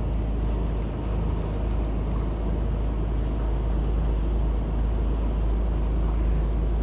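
A boat's engine running steadily on the river, a heavy low rumble with a faint steady hum, with wind buffeting the microphone.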